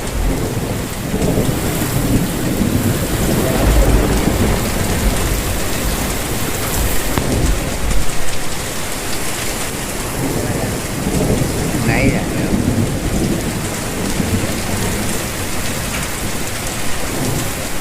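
Heavy rain pouring steadily onto surfaces, with low rolls of thunder rumbling now and then.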